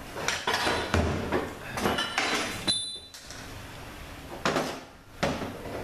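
Metal 6F35 transmission parts being handled and set down on a workbench: a series of scrapes and clanks, one with a short metallic ring about halfway through.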